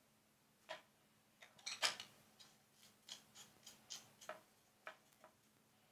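Handling noise as the camera is moved and set back in position over the bench: about a dozen light clicks and taps at uneven intervals, the loudest cluster about two seconds in.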